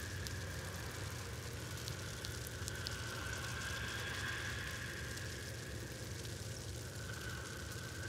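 Steady low mechanical rumble with a faint high hum above it, like an engine running.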